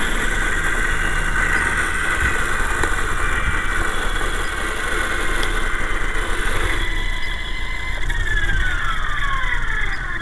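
Electric motor and rotor whine of a GT Model QS8006 remote-control helicopter. A steady high whine begins falling steadily in pitch about eight seconds in as the rotors spin down.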